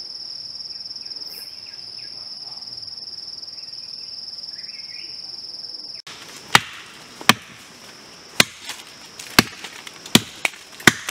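Insects drone steadily on one high pitch. About six seconds in the sound cuts abruptly to a blade hacking at wood or brush: about seven sharp chopping blows at uneven intervals, with the insect drone fainter beneath them.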